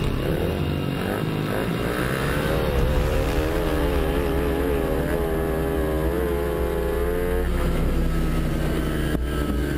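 Racing motorcycle engine at full throttle on a straight-line sprint. Its note wavers up and down, then holds steady and drops away about seven and a half seconds in.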